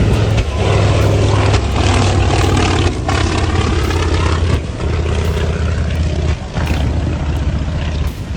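Propeller-driven light aircraft engine droning steadily at low pitch, with a noisy rush over it.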